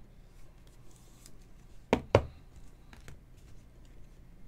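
Two quick knocks about two seconds in, a rigid plastic card holder knocking on the tabletop, with faint taps and rustles of trading cards being handled.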